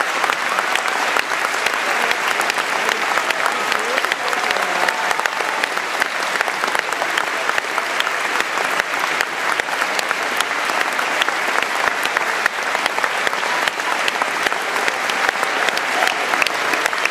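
Large audience applauding steadily: many hands clapping densely without a break.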